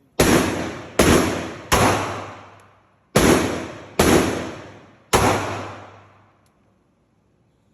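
Six pistol shots from a Taurus G2C handgun, fired in two strings of three with a pause between them, each shot ringing out in a long echoing decay.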